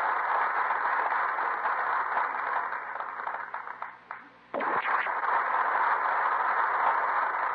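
Studio audience applauding, a dense steady clapping on an old radio broadcast recording. The clapping fades away briefly about four seconds in and then comes back abruptly.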